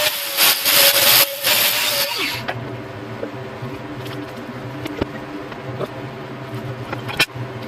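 A power tool runs with a steady whine over harsh, gritty noise, then cuts off about two seconds in. A low steady hum with scattered clicks follows.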